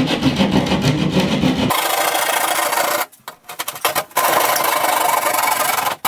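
Hand drywall saw sawing through drywall along a scored line, a rasping back-and-forth cut that stops briefly about three seconds in and then goes on.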